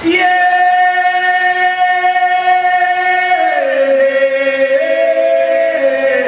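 Singing in a traditional Rwandan song, with long held notes and no drums. The pitch holds for about three and a half seconds, steps down, then rises again about a second later.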